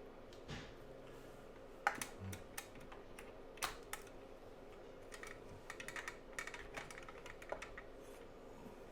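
Scattered small clicks and taps of test equipment being handled on a workbench, with one sharper click about two seconds in and a run of quick light clicks in the middle.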